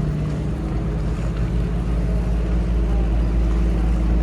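River ferry's engine running steadily with a deep drone while the boat manoeuvres to come alongside the dock.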